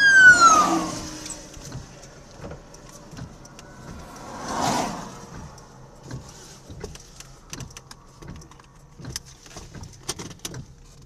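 An emergency vehicle siren's falling wail dies away in the first second or so. About four and a half seconds in, a passing car swells and fades. Scattered light ticks and taps follow near the end.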